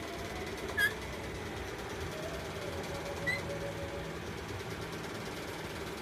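Alexandrine parakeet giving two short, high-pitched squeaks, about a second in and again a little after three seconds, over a steady background hum.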